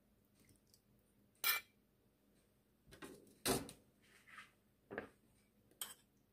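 A ladle and a spoon clinking against a soup bowl as soup is served: a handful of short, sharp clinks, the loudest about a second and a half in and again about three and a half seconds in.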